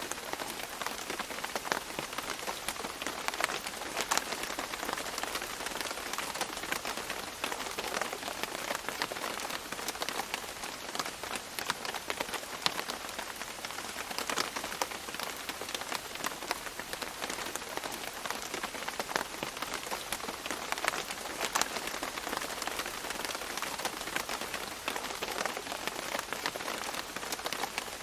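Steady rain falling on leaves, a dense patter of many small drops with scattered louder individual drips.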